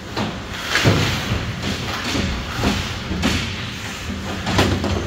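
Hockey play: a string of sharp knocks and thuds, roughly one a second, from sticks, puck and players striking the boards.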